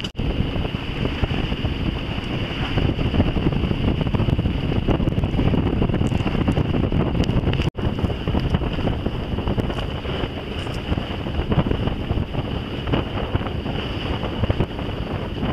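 Wind buffeting the microphone on a sailboat under way under sail, with the rush of water along the hull underneath. The sound cuts out for an instant about eight seconds in.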